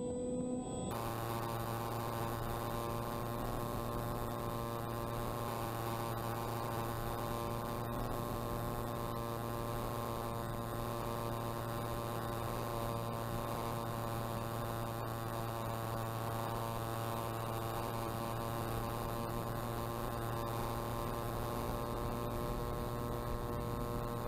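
Electric motor and propeller of an RC plane, heard from a camera on board, running at steady throttle: a steady hum with a stack of whining overtones over a hiss of passing air. The sound changes abruptly just under a second in, then holds steady.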